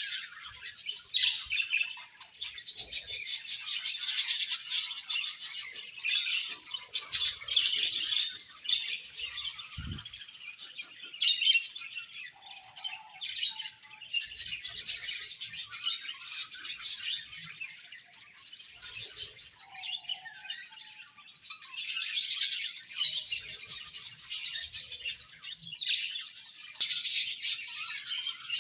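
A budgerigar colony chirping and chattering continuously, many birds at once, in waves of rising and falling busyness. A brief low thump comes about a third of the way through.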